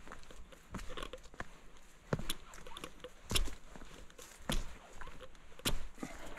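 Footsteps of a person walking at a steady pace, a step a little more often than once a second, with fainter scuffs and clicks between the steps.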